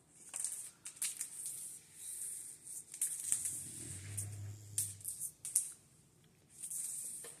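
Cats playing: quick, irregular scratching and rustling of claws and paws on a surface, with sharp clicks throughout and a brief low hum about four seconds in.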